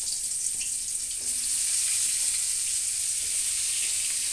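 Hot oil sizzling steadily in a kadai as slices of pointed gourd fry, with a few light ticks.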